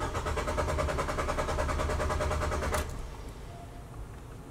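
Starter motor cranking a 2017 Nissan Sentra's engine with the fuel pump unplugged, a fast even churning that stops abruptly after nearly three seconds. A quieter low sound continues after it.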